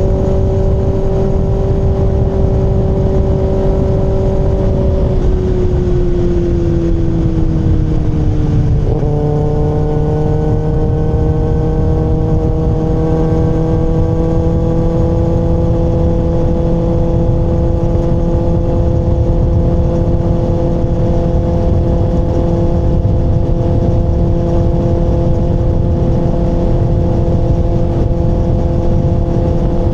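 Kawasaki ZX-6R inline-four engine running while riding: steady revs at first, the note falling from about five seconds in, a sudden change near nine seconds, then rising gently and holding steady. A low rush of wind and road noise runs underneath.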